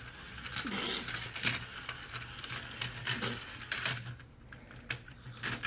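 Irregular light plastic clicks and clatter from a toy puzzle car track set and its toy vehicle being handled.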